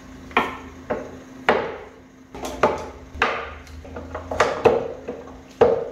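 Screwdrivers being dropped one after another into the drilled holes of a wooden screwdriver rack, each landing with a sharp wooden knock that rings briefly: about nine knocks at an uneven pace.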